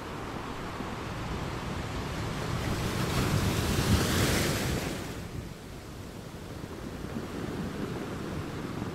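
Rough sea surf breaking and washing over shoreline rocks. It swells to a loud rush about three to four seconds in, falls away near the halfway point, then carries on as a lower steady wash, with wind buffeting the microphone.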